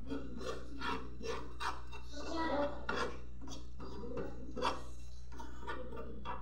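Metal spoon scraping and stirring desiccated coconut in a dry non-stick frying pan, in quick repeated rasping strokes about three a second, as the coconut is dry-toasted.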